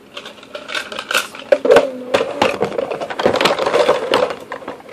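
Hard plastic clicking, knocking and rattling as small items are handled and put into a plastic toy safe, with a run of quick clicks that gets busier after about a second and a half.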